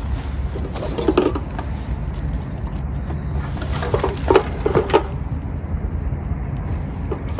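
Water splashing as it is poured over a carp on an unhooking cradle to wet it, in a few short splashes about a second in and again between four and five seconds in, over a steady low rumble.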